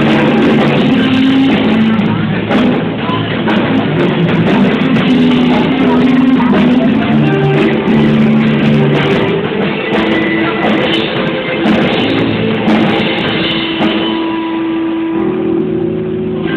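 Live rock band playing loud with electric guitar and drum kit, recorded with a poor, muffled sound.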